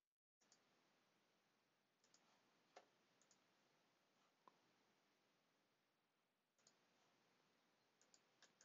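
Near silence with faint hiss and a few scattered, faint clicks, about eight of them.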